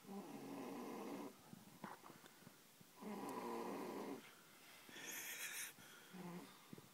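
A young girl snoring heavily in her sleep: two long snores about three seconds apart, then a hissing breath and a short snore near the end.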